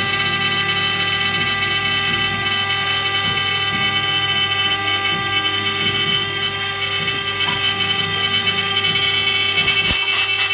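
High-speed spindle of a mini CNC router whining steadily as it mills the lock pocket in an aluminium door profile, with a slight change in the cutting sound near the end.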